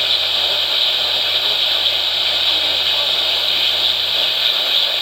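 Steady loud hiss of radio static, strongest in the upper middle, over a low steady hum.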